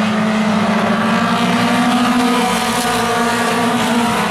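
Engines of several mini stock race cars running at racing speed around the track. Their overlapping tones hold steady with slight rises and dips.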